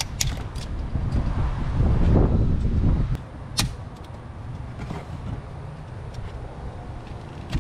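A few sharp plastic clicks, the loudest about three and a half seconds in, as the factory PCV hose's quick-connect fittings are released by their push tabs and the hose is worked loose from the engine. A loud low rumble swells and fades between about one and three seconds.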